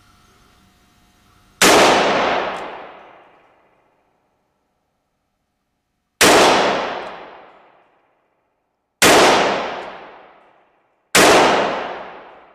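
Four handgun shots fired slowly one at a time, the gaps between them shortening from about four and a half seconds to two. Each crack rings on in the echo of an indoor range and fades over about two seconds.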